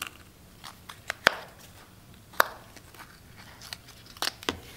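Scattered small clicks and taps of a rusty drum-brake wheel cylinder being handled on a steel workbench while its rubber dust boot is pried off with a pick, with two sharper clicks about a second and two and a half seconds in.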